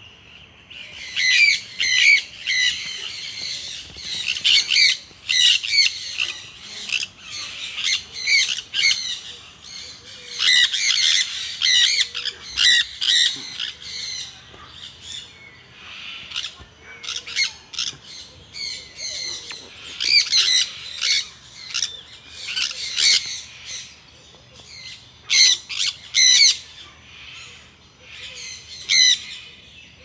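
Sun conure giving loud, harsh squawks in repeated clusters of quick notes, with short pauses between them.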